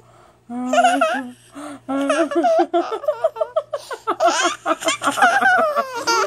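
Toddler laughing hard and high-pitched, starting about half a second in and breaking into quick, choppy bursts of giggles.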